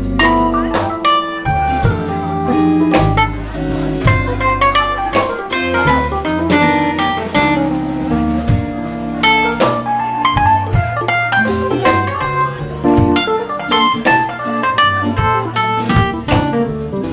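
Live band playing an instrumental passage: a guitar takes the lead melody over a walking bass line and a drum kit.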